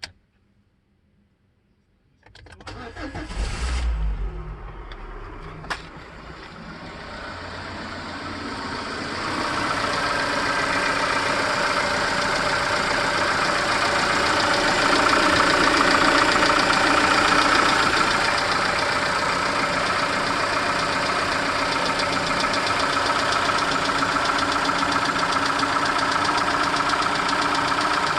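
Peugeot-Citroën TU5JP4 1.6-litre 16-valve four-cylinder petrol engine starting from cold about two seconds in, then idling with a knock that the owner hears on a cold engine.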